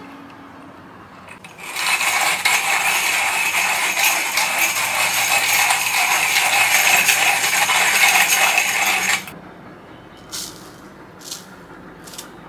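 Coffee beans being ground in a hand-crank coffee grinder: a steady, dense crunching for about seven seconds that then stops, followed by a few light knocks.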